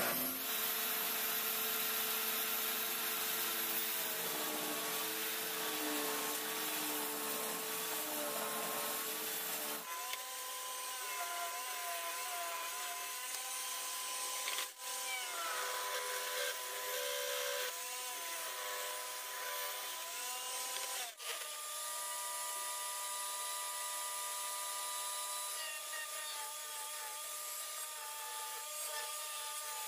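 Electric power tool running while working wood, its motor whine dipping and rising in pitch as the load changes. The sound changes abruptly at about 10, 15 and 21 seconds.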